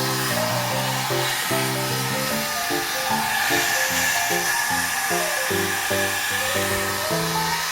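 Hair dryer running steadily, with background music playing a melody of short notes over it.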